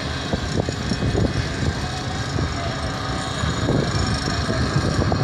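Diesel engine of a large mobile crane running steadily as it holds a tower crane mast section on its hook, under a continuous low rumble of construction-site machinery.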